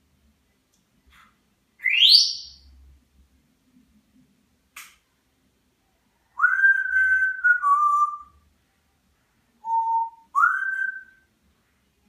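African grey parrot whistling. First comes a fast upward-sweeping whistle, then a single click. Then a long held whistle that steps down in pitch, and finally a short low note followed by a note that slides up and holds.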